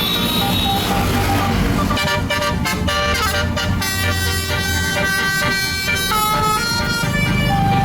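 Tour bus telolet horn playing a run of changing notes for about five seconds, starting about two seconds in, over the low rumble of a bus engine.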